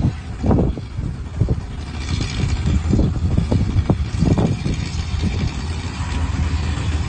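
Heavy earthmoving machinery's diesel engine running with a steady low drone, cut by irregular knocks and clanks, with a hiss joining about two seconds in.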